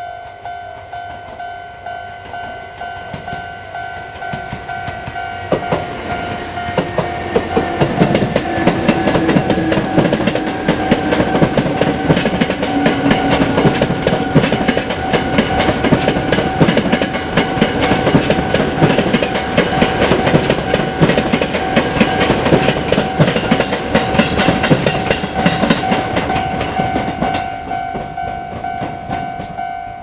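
Level-crossing warning alarm ringing steadily with a repeating electronic ding at two pitches. From about five seconds in, a Seibu 2000 series electric train passes close by with rattling wheel clatter over the rail joints and a falling motor whine, fading as it moves away near the end.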